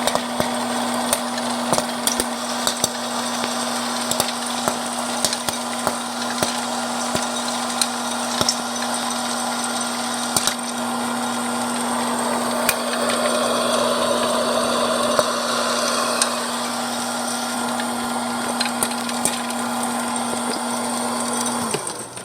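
Popcorn kernels popping with scattered, irregular sharp pops over the steady hum of the cooking appliance. The appliance's hum cuts off just before the end.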